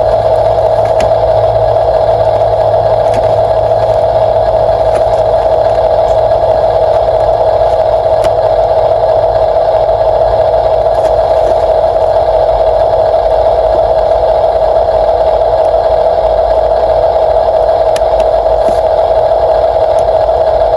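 Electric motor and plastic gearbox of a radio-controlled construction model running with a steady, unbroken whine, with a few faint ticks.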